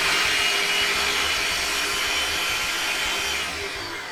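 Ninja food processor motor running on its dough setting, blending dry flour, salt and oil in the jar. It runs steadily, then winds down toward the end.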